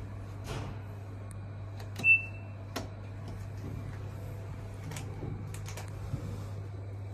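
An elevator key-card reader gives one short, high beep about two seconds in as a room card is held to the car's panel, over a steady low hum of the lift. A few light clicks follow from the button panel and doors.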